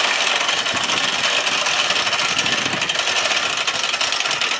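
Several hand-crank winches on the posts of a portable boat lift being cranked at once to raise a sailboat. Their clicking is so fast and overlapping that it runs together into a steady, loud rattle.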